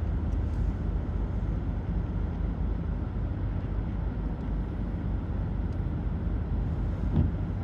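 Steady low rumble of background noise, with a brief low thump near the end.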